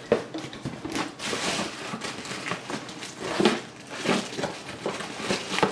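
Rustling and crinkling of plastic wrapping and packaging, with light knocks, as a plastic-bagged pitcher insert is pulled out of its box.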